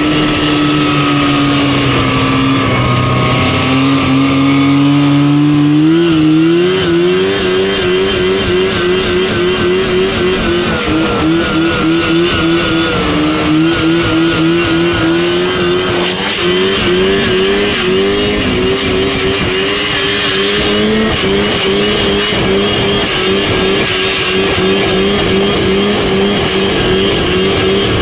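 Lynx snowmobile's Rotax 503 two-stroke twin engine running at sustained revs. Its pitch sags a little over the first few seconds, jumps up about six seconds in, and then wavers quickly up and down for the rest.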